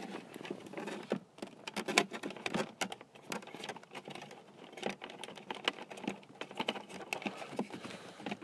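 Irregular clicking and tapping of a screwdriver and fingers working the release tab of a stuck wiring connector, the cigar-lighter plug, behind the dashboard trim; the connector does not let go.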